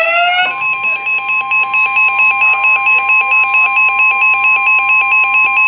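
Weather radio emergency alert tone sounding between warnings: a brief rising sweep, then about half a second in, a loud steady single-pitched alarm tone with a second beep pulsing about four times a second over it.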